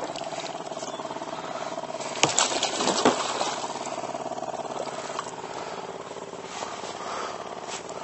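Water splashing and fishing line being hauled in by hand as a pike is pulled up alongside an inflatable boat, with a couple of louder splashes two to three seconds in, over a steady faint hum.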